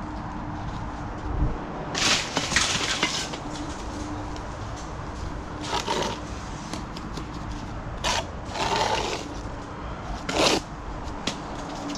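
Bricklayer's steel trowel scraping and spreading mortar on perforated clay bricks as they are laid, in a series of short, irregular scrapes over a faint steady hum.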